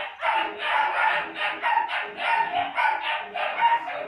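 Puppies yapping, a quick unbroken run of short, high calls, about three to four a second.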